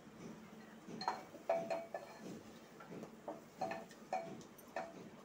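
Wooden spoon knocking and scraping against the sides of an aluminium pressure cooker while stirring masala being fried with a splash of water. It makes about two short knocks a second, each with a brief metallic ring, starting about a second in.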